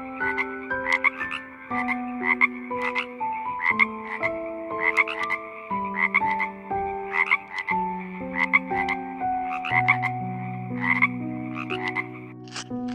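A frog croaking repeatedly, in short runs of pulsed croaks about once or twice a second.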